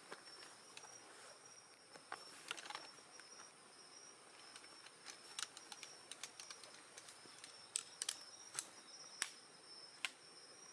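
Insects trilling steadily in a high, unbroken tone on a summer night, with scattered sharp crackles and pops from a small wood fire, the loudest few in the second half.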